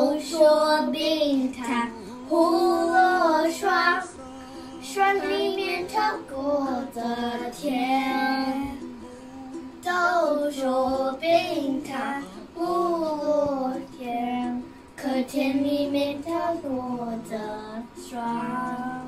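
A young girl singing a song in a high child's voice, in phrases separated by short pauses.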